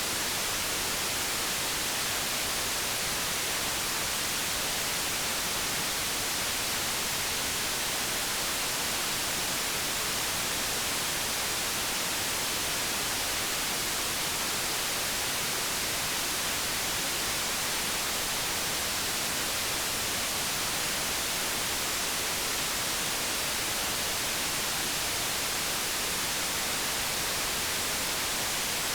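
Steady white noise: an even, unbroken hiss, strongest in the high frequencies.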